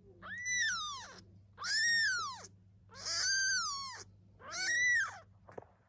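A kitten meowing four times in a row, each meow high-pitched and about a second long, rising and then falling in pitch.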